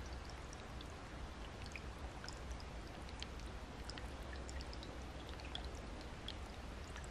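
Light rain or dripping: scattered single drops falling into shallow water over a faint, steady hiss of gently moving water.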